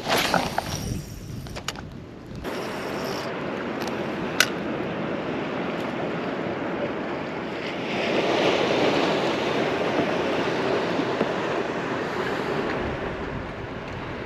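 Waves and wind on open salt water: a steady rush of water with wind on the microphone, swelling about eight seconds in. A few knocks and rustles at the start.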